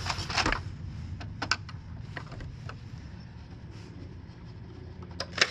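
Scattered clicks and taps of a screwdriver and hands working on the plastic housing of a Polaris 3900 Sport pool cleaner as its screws are backed out, over a low steady hum.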